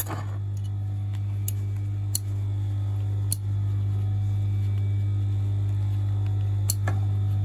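Industrial sewing machine's motor humming steadily while the needle is not stitching, with a few soft clicks from handling the fabric and thread at the needle.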